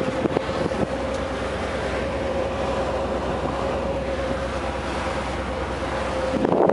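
Passenger boat's engine running steadily under way: a low hum with a steady whining tone over it, and wind and water noise on the microphone. Near the end the wind buffeting gets louder and rougher.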